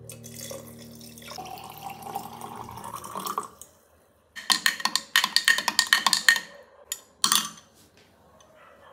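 Water poured from a metal pot into a glass mason jar, the pitch of the pour rising as the jar fills. A short pause follows, then about two seconds of rapid clinking of a glass straw stirring against the glass jar, with one more brief clink a second later.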